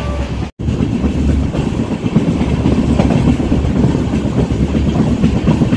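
Moving passenger train heard from inside the coach: a steady rumble of the wheels on the track. The sound breaks off for a moment about half a second in.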